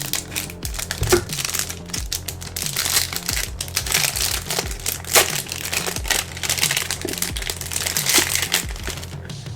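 Crinkly packaging wrap rustling and crackling in irregular bursts as an item is unwrapped by hand, over steady background music.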